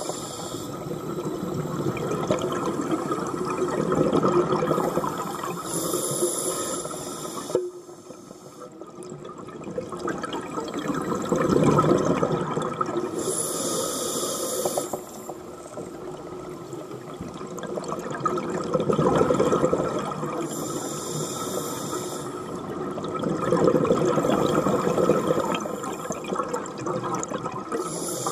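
Scuba diver breathing through a regulator underwater: a short hissing inhale about every seven seconds, each followed by a long rush of exhaled bubbles.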